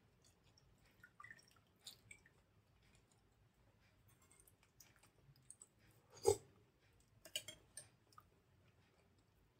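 Quiet eating sounds: soft chewing and small wet mouth clicks while eating idli with sambar. One louder, sharp click comes about six seconds in, and a few more follow just after.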